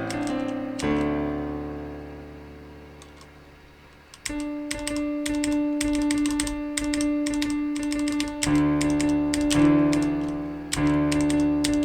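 Piano notes from a virtual piano played on a computer keyboard, with the clicks of the computer keys under each note. A chord rings and fades over about three seconds, then a quick run of key presses brings back layered sustained notes.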